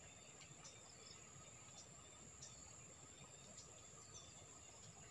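Near silence with a faint outdoor background: a steady high insect drone with a few short, faint chirps scattered through it.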